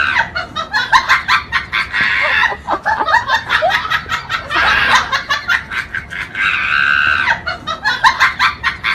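High-pitched, rapid cackling laughter in quick pulses, a laugh clip that loops and starts over partway through.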